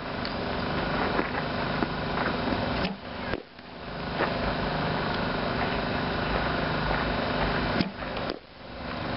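A bat hitting a softball twice, about five seconds apart: two sharp cracks, each followed by a brief drop in the steady background noise.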